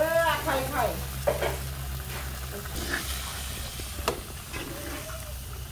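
Sliced bamboo shoots and fried catfish being stirred in a metal wok with a metal utensil: a steady sizzle of frying, with scrapes and a few sharp knocks of the utensil against the pan.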